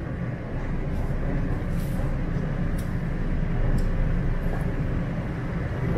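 Steady low hum and rumble inside a stationary TTC Toronto Rocket subway car waiting at its terminal station, its ventilation and onboard equipment running.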